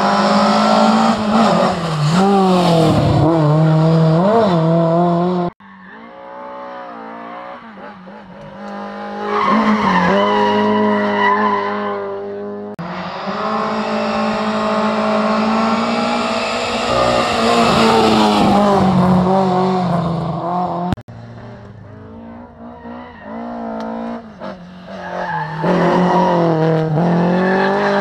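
Rally car engine driven hard, revving up and dropping through gear changes, with tyres squealing and sliding on the stage. The sound cuts off abruptly twice, about a third of the way in and again about three-quarters through, as one clip gives way to the next.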